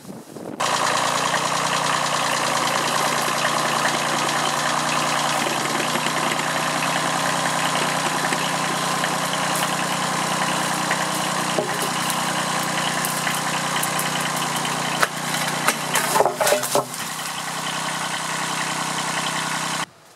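Kubota B7001 compact diesel tractor engine running steadily under load as it hauls the hoist cable. About fifteen seconds in comes a short run of sharp knocks and clatter as the pulley's pipe bends and the load slips out.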